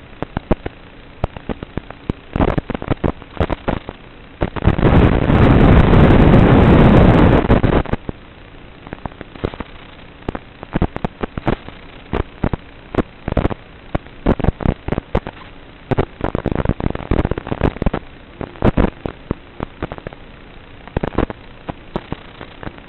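Crackling static with irregular sharp pops from an analog FPV video link's audio channel, the noise of a weak or breaking-up radio signal. A loud burst of dense hiss starts about four and a half seconds in and lasts about three seconds.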